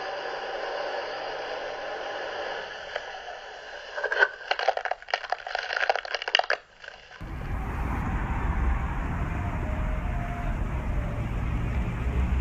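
Hiss of boat-wake footage playing through laptop speakers, broken by a run of loud crackles about four seconds in. About seven seconds in it cuts off suddenly and gives way to a steady low rumble of wind on a phone microphone.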